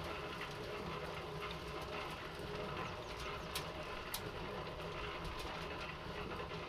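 Harbor Freight 3.5 cubic foot electric cement mixer turning a hardware-cloth trommel drum: a steady motor and drive hum with compost, wood chips and small rocks tumbling in the drum. Two sharp clicks a little past the middle.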